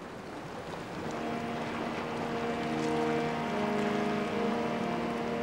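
Rushing of sea and wind fading in and growing louder, joined about a second in by a low steady humming drone of several held tones.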